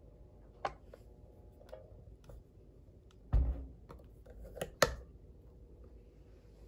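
Compact waffle maker being closed: a few light clicks and taps, then a heavy dull thump of the lid coming down a little over three seconds in, followed by two sharp clicks about a second later as the lid is pressed and fastened. A faint steady hum runs underneath.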